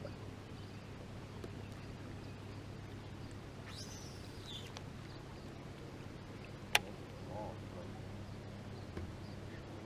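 Faint steady low hum, with a bird's short call of falling high notes about four seconds in and a single sharp click a little before seven seconds.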